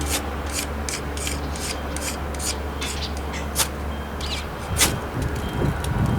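Wood fire crackling, with irregular sharp pops over a steady low rumble and a few louder knocks near the end.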